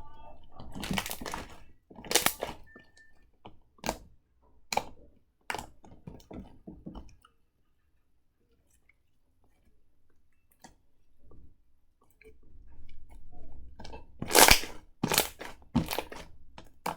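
Slime being squished and poked by hand: irregular bursts of wet crackling and clicking, with a near-silent pause in the middle and the loudest bursts near the end.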